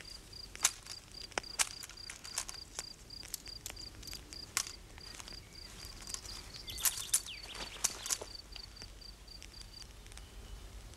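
Outdoor nature ambience: a high, even chirp like an insect's, repeating about three times a second, with scattered sharp clicks and snaps; the chirping stops near the end.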